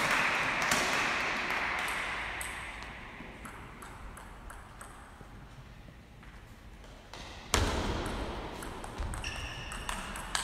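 Table tennis rally: the hard plastic ball clicks and pings off the paddles and the table a few times a second, beginning with a sharp thud about three-quarters of the way through. Before it, a haze of hall noise fades away over the first few seconds.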